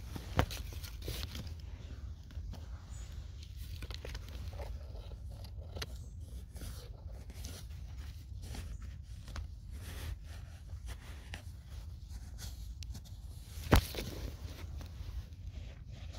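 Sandy soil being scraped and crumbled by a gloved hand, with irregular crunching and rustling. Two sharp knocks stand out, one about half a second in and one near the end.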